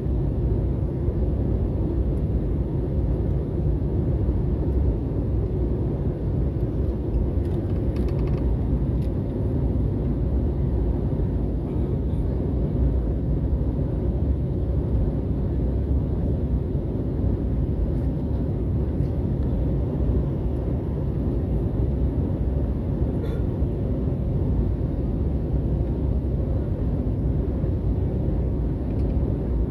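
Steady low roar of an airliner's jet engines and rushing airflow, heard from inside the passenger cabin in flight.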